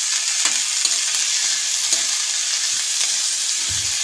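Sliced green beans sizzling in hot oil in a wok while a metal ladle stirs them, scraping and clicking against the pan now and then.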